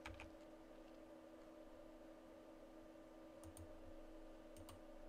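Near silence with a steady faint hum, broken by three pairs of faint short clicks from computer input, the first near the start, the others about three and a half and four and a half seconds in.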